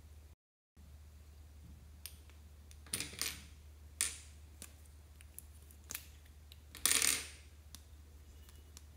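Plastic chopsticks clicking and tapping against a glass bowl while clear slime with glitter and sequins is stirred, with a few sharp clicks and short crackly bursts about three, four and seven seconds in.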